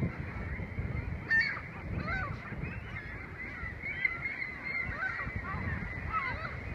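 A large flock of gulls calling: many short, overlapping cries, some rising and some falling in pitch, heard without a break.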